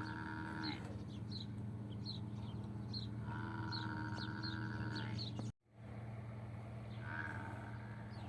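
A farm animal calls three times, each a long, drawn-out cry of a second or two held at an even pitch, over a steady low hum. Quick high chirps repeat in the background.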